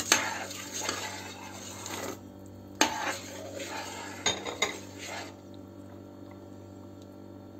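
Crisp fried dough pieces tipped from a glass bowl into a pot of soup, with a clink and a few seconds of rustle and slosh. This is followed by a metal ladle stirring the soup and knocking several times against the stainless steel pot.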